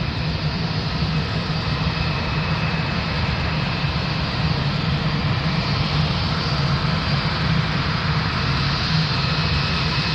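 Jet airliner engines running steadily at idle: a low hum under an even hiss.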